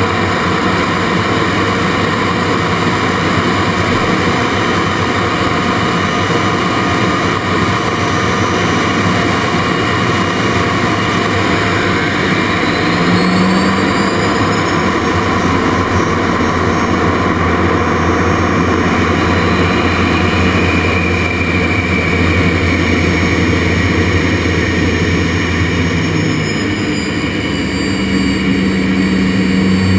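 Jet Provost Mk5's Rolls-Royce Viper turbojet and the airflow over the canopy, heard from inside the cockpit in aerobatic flight: a loud, steady rush with high whining tones that slide in pitch, drawing together about halfway through and spreading apart again near the end.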